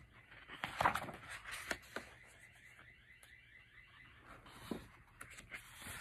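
Pages of a large photobook being turned and handled, with crisp paper rustles, the loudest about a second in. A faint, rapidly repeating high chirp runs in the background for a few seconds in the middle.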